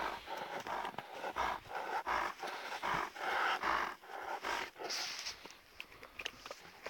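Alaskan Malamute panting close to the microphone, quick breathy puffs about two a second, loudest around three to four seconds in.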